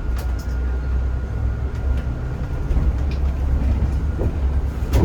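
Ride noise inside a Zhongtong range-extended hybrid city bus under way: a steady low rumble with a faint steady whine above it and scattered light clicks and rattles.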